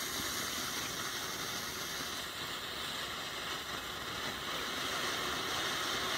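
Small Pyroart Glanzpunkte silver-star firework fountain burning, giving a steady hiss of spraying sparks.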